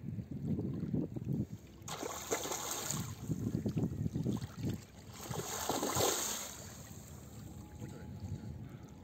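A large hooked carp thrashing at the surface of shallow water as it is hauled to the bank, with two bouts of splashing about two seconds and five and a half seconds in, over wind rumbling on the microphone.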